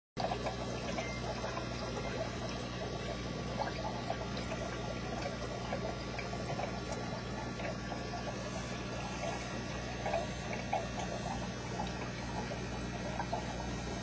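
Aquarium water running and trickling steadily, as from a filter outflow splashing into the tank, over a steady low hum from the pump.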